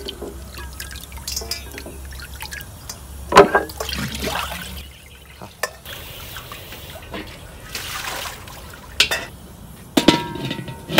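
Water splashing and dripping as chicken feet are rinsed in a bowl and scooped out with a metal slotted ladle, with scattered clinks and one sharp knock about three and a half seconds in. Near the end come a few sharp metal knocks, a spatula against a wok.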